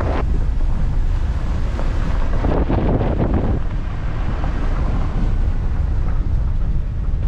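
Wind buffeting the microphone, a loud, steady low rumble, with a stronger gust about two and a half seconds in.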